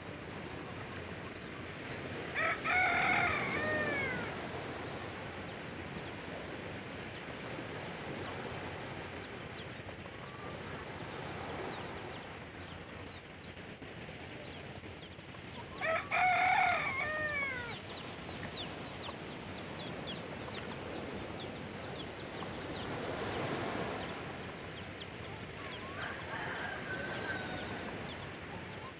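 A rooster crows twice, about three seconds in and again about sixteen seconds in, each crow a long call ending on a falling note, over a steady wash of gentle surf. A fainter call follows near the end.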